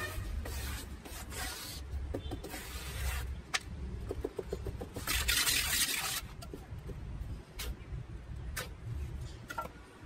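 Trowel and hands scraping and spreading cement mix over a lattice tile mould, in several scraping strokes with scattered clicks and taps; the longest, loudest scrape comes about five seconds in. A low steady rumble runs underneath.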